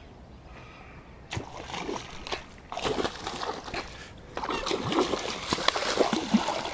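Water splashing as a pike blows up on a topwater lure near the bank, a heavy, irregular thrashing at the surface that is loudest in the second half.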